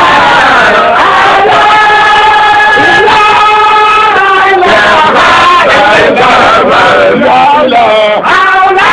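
Group of voices chanting a Baye Fall Sufi zikr in long held notes that shift in pitch every second or two.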